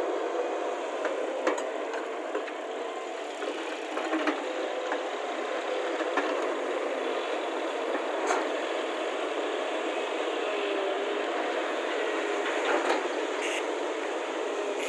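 Excavator engine running steadily, with a few sharp knocks and rattles from the machine working.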